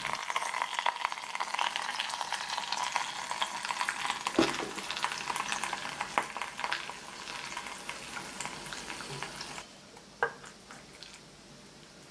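A hot pan of thick-cut bacon and fried eggs sizzling and crackling in its fat, with one dull knock about four seconds in. The sizzle dies down near the end, with a single click.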